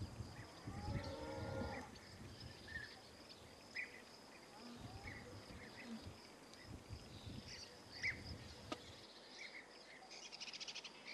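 Faint outdoor background: small birds chirping now and then. About a second in there is one short, drawn-out animal call, and near the end a quick run of faint ticks.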